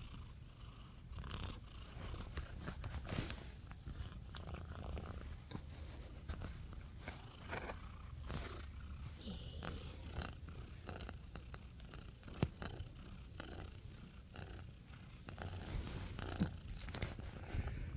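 Domestic cat purring steadily close to the microphone, a low pulsing rumble, with scattered faint clicks and one sharper click about twelve seconds in.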